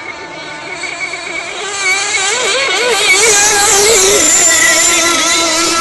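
Two radio-controlled racing boats running at speed, their high-pitched engines wavering up and down in pitch. The sound grows louder about two seconds in as they come close.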